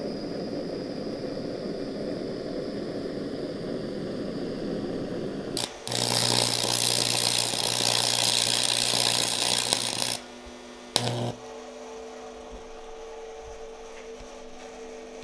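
Gas camp stove burner hissing steadily. About six seconds in it gives way to a louder, crackling stick-welding arc with a steady buzz, burning cast-iron welding rod on AC. The arc stops after about four seconds, strikes again briefly a second later, and then only a steady hum remains.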